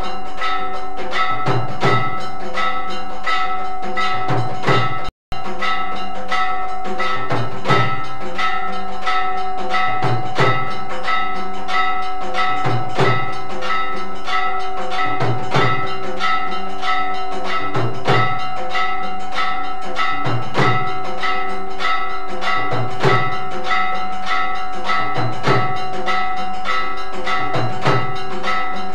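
Temple bells ringing without a break for the aarti, with fast clashing strikes and a deep drum beat about every two and a half seconds. The sound cuts out for a moment about five seconds in.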